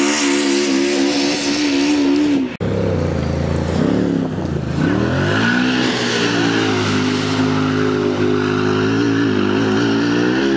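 Off-road racing vehicle's engine running hard at high revs. The sound cuts out for an instant about two and a half seconds in, then the revs dip and climb twice before holding high again, and drop near the end.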